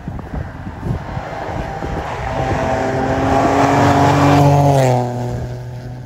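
Ford Fiesta rally car approaching flat out on a gravel stage and passing close by. The engine note grows steadily louder, drops in pitch as the car goes past about five seconds in, then fades away.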